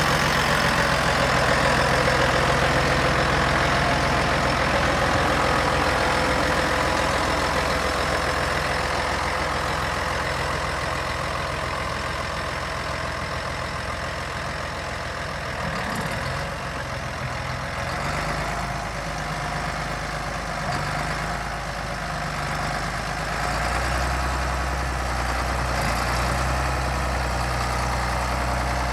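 John Deere 8000-series tractor's diesel engine idling steadily, loudest at first, quieter in the middle and louder again near the end.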